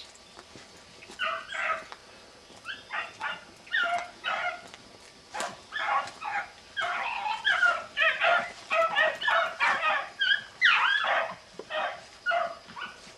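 Beagles baying while running a rabbit: several hounds give voice in drawn-out, overlapping howls, which start about a second in and come thickest in the middle. The baying is the sign that the pack is on the rabbit's scent.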